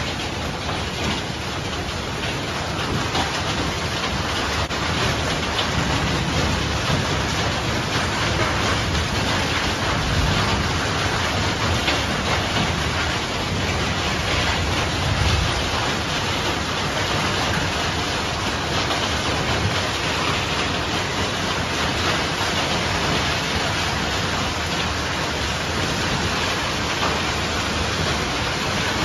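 Heavy rain mixed with hail pouring down in a thunderstorm, a dense, steady hiss of drops and hailstones striking the ground and surfaces. Low rumbles swell up in the middle.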